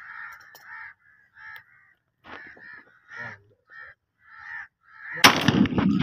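Birds calling in a run of short calls, then a single shotgun blast from a Kral A12 a little after five seconds in, the loudest sound, with its echo ringing out.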